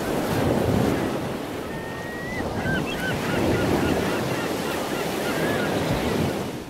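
Ocean surf sound effect: waves washing in, swelling and ebbing, with short high chirping calls over it from about two seconds in. It cuts off abruptly at the end.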